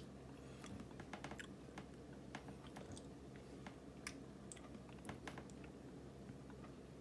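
Faint, irregular clicks and soft wet sounds of eating a thawed frozen soft persimmon: a metal spoon scooping the pulp in a ceramic bowl, with chewing.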